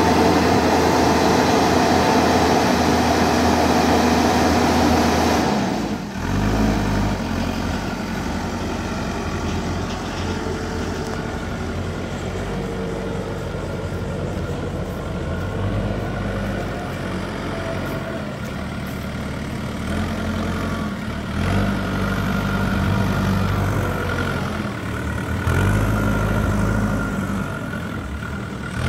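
JCB 3DX backhoe loader's diesel engine running, its speed rising and falling several times as the machine drives and lifts. It is louder and harsher for the first several seconds.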